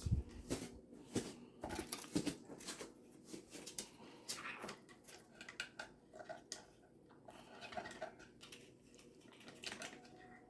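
Black-headed caique handling a cardboard toilet-paper roll: irregular rustling, crinkling and tapping of cardboard, with a few short squeaky notes partway through.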